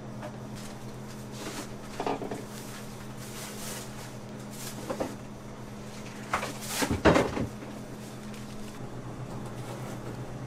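Kitchen handling sounds while decorating a cake: a few soft knocks and rustles, the loudest cluster about seven seconds in, over a steady low electrical hum.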